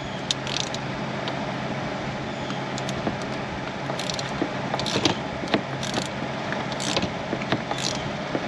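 Ratchet wrench on an extension backing out a T27 Torx screw, its pawl clicking in short runs about once a second, over a steady background hum.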